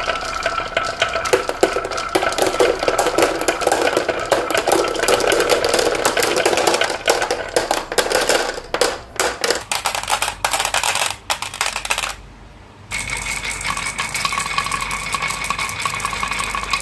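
Many marbles rolling and clattering down a marble run track: a dense stream of rapid clicks and rattles, broken by a short lull about twelve seconds in.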